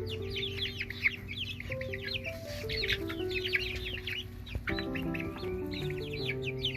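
A flock of six-week-old chickens (Rhode Island Reds, brown sex links and buff rocks) peeping, many short falling peeps overlapping, over background music.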